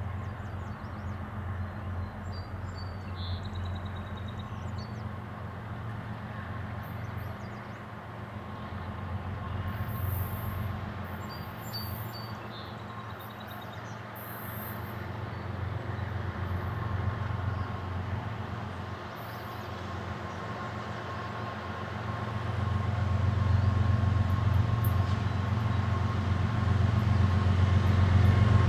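Diesel locomotive approaching, its low engine drone growing steadily louder over the last several seconds. Birds chirp faintly a couple of times.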